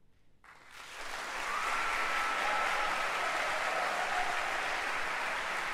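Audience applause in a concert hall, breaking out about half a second in after a moment of silence, swelling within a second and holding steady.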